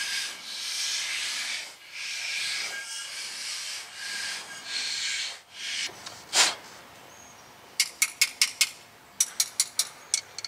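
Hand file rasping rust scale off the pad slots of a rusty rear brake caliper bracket, in long rough strokes for about six seconds. Near the end comes a run of quick sharp clicks in two bunches.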